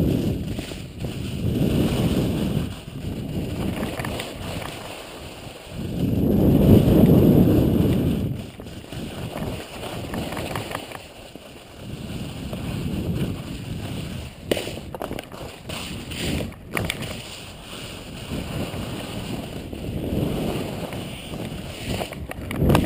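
Wind buffeting the microphone of a skier's body-worn camera during a downhill run, swelling and fading in gusts, over a steady hiss of skis running on snow. A few sharp clicks come just past halfway.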